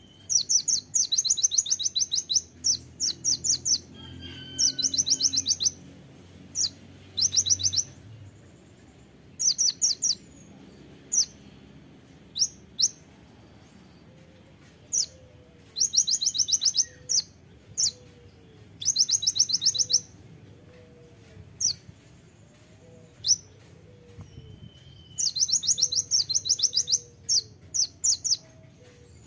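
Male van Hasselt's sunbird (kolibri ninja) singing: bursts of very fast, high, sharp trilled notes, each burst one to two seconds long, with single sharp chips between the bursts.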